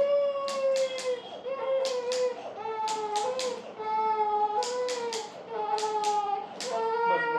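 A young child crying in repeated high-pitched wails, each about half a second to a second long, with short sharp breaths between them.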